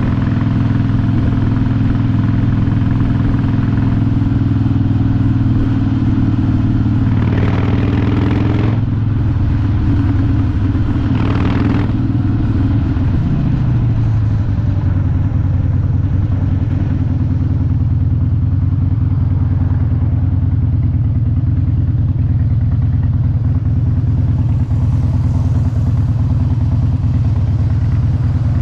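Harley-Davidson motorcycle's V-twin engine running steadily while riding, its pitch dropping about halfway through as the bike slows, then running on at a lower, steady pitch. Two short rushes of noise come shortly before the drop.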